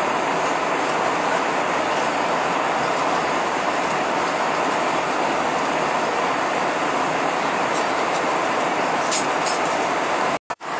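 Steady cabin noise of an Airbus A320 in flight: the even rush of air along the fuselage with the hum of its IAE V2527-A5 engines. The sound cuts out to silence twice, briefly, near the end.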